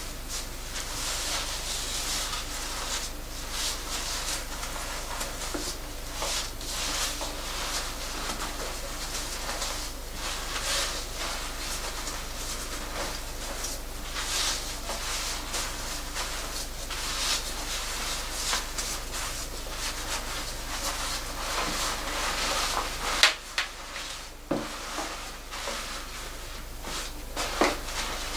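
Gloved hands scrubbing shampoo lather through wet, thick 4B natural hair: a wet rubbing that swells and fades in irregular strokes. A sharp click about 23 seconds in and another near the end.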